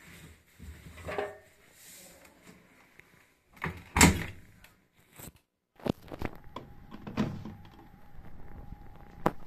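Siemens WM14N2L3 front-loading washing machine: soft fabric rustles as a towel is pushed into the drum, then the door is shut with a loud thunk about four seconds in. Afterwards the plastic detergent drawer is slid out, with several small clicks and a sharper click near the end.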